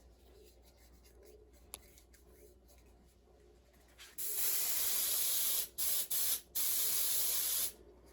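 CRC Smoke Test aerosol smoke-alarm tester sprayed in three bursts: a long one about four seconds in, a short one, then another long one. The spray is puffed at a smoke alarm to test its sensor.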